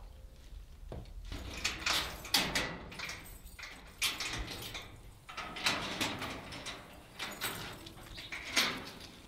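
Hands undoing a twisted-wire fastening on a large sliding door, with irregular metallic rattling and scraping as the wire and latch are worked loose.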